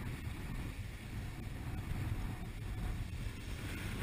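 Strong wind from the early bands of a hurricane buffeting the microphone: a steady, dense low rumble with no breaks.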